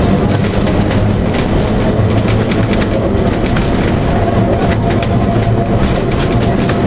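Manx Electric Railway tramcar running along the track, heard from on board: a loud, steady rumble of wheels and running gear with scattered sharp clicks. A faint steady whine joins about four seconds in.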